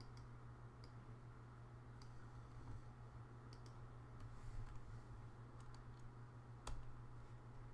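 Faint, scattered computer keyboard key clicks, one now and then rather than a run of fast typing, the loudest near the end, over a steady low hum.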